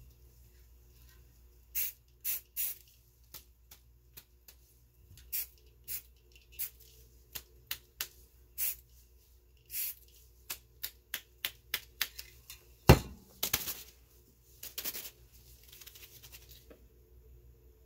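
A run of short, sharp rustling and hissing strokes from gloved hands working paper and spray paint on a spray-paint painting, with one loud click about thirteen seconds in and a couple of longer rustles after it.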